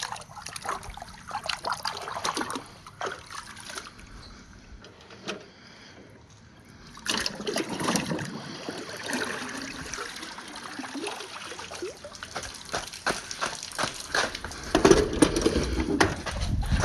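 Water running down plastic rain gutters and PVC pipe, with marbles rolling along and clicking against the plastic. It goes quieter for a few seconds in the middle, picks up again about seven seconds in, and a louder, deeper rush comes near the end.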